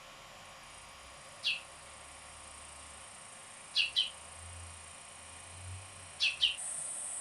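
Hooded oriole giving short, sharp call notes that drop in pitch: one single note, then two quick pairs. Near the end a steady high hiss starts in the background.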